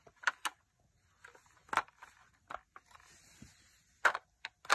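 Handling noise: a handful of light, separate clicks and taps from plastic toys being handled.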